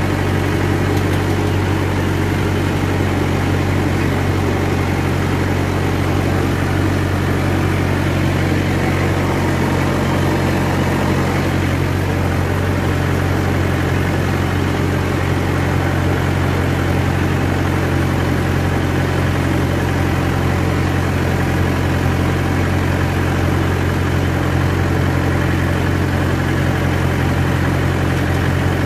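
Mahindra 575 DI tractor's four-cylinder diesel engine running at a steady speed, heard from the driver's seat.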